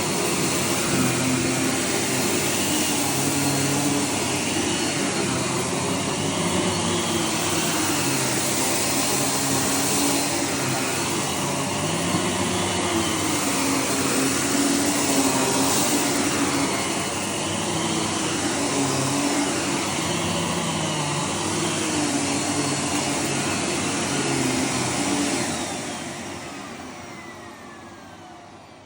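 Miele S7 upright vacuum cleaner running on carpet, its tone rising and falling in a regular cycle about every three seconds. Near the end it is switched off and the motor winds down with a falling whine.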